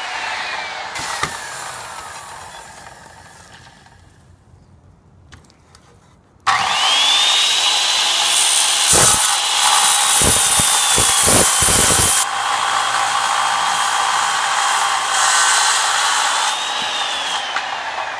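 Bosch circular saw cutting aluminum angle. It winds down with a falling whine at first, then about six and a half seconds in starts up again and cuts loudly through the aluminum for about six seconds, with a few low knocks, runs on more lightly, and begins winding down near the end.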